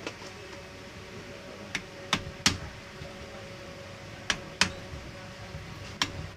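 A series of about seven sharp taps and clicks, unevenly spaced, over a faint steady hum.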